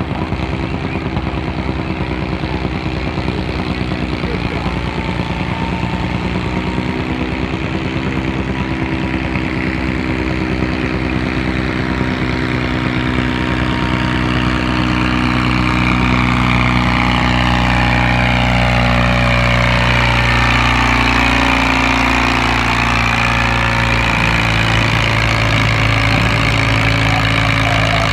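Garden pulling tractor's engine running hard under load as it drags a weight-transfer sled down a dirt track. It gets louder about halfway through as the tractor nears. Its pitch slowly falls, and a second rising tone appears near the end.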